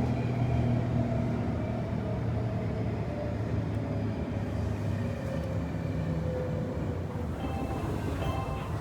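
Interior of a Semboku 7000 series electric commuter train car in motion: steady rumble of the running train with a low hum and faint tones that drift slowly in pitch. A few short, higher tones come in near the end.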